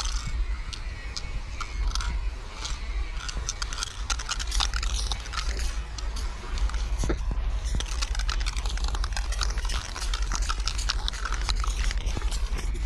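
Aerosol spray-paint can of chrome hissing in short, repeated bursts as paint is sprayed onto a brick wall, with crackly clicks among them and a steady low rumble underneath.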